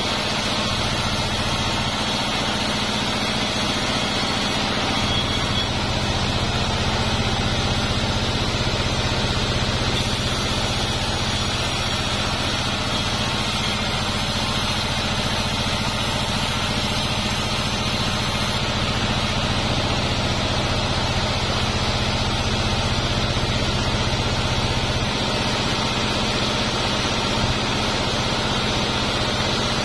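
Large sawmill band saw running steadily as a durian-wood beam is fed through the blade: a constant low drone with a thin high whine over it.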